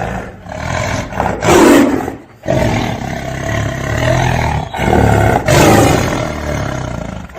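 Tiger roaring: several long, loud roars in a row with short breaks between them.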